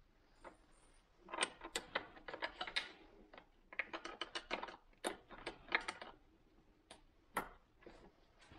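Irregular light metal clicks and taps, in quick clusters, from a wrench being worked on the hydraulic trim hose fitting at the back of a Volvo Penta SX Cobra gimbal housing, where there is little room to swing it.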